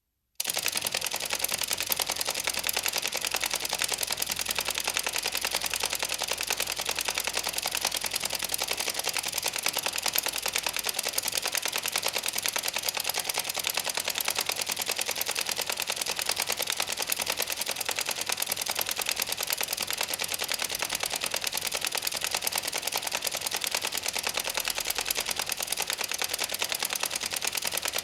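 Teeth grinding (bruxism): a fast, continuous gritty clicking of tooth against tooth, starting abruptly and going on without a break.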